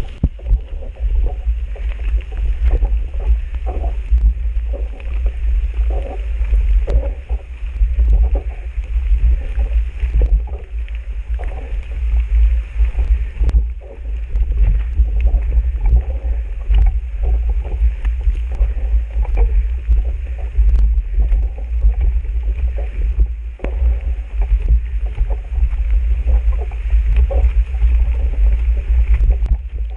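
Heavy low rumble of a camera microphone being buffeted, with irregular knocks and scuffs from walking and pushing a mountain bike uphill on a trail.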